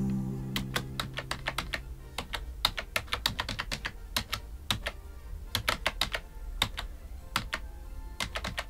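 Typing on a computer keyboard: irregular keystroke clicks, several a second, with pauses between bursts. Low sustained music notes fade out over the first two seconds.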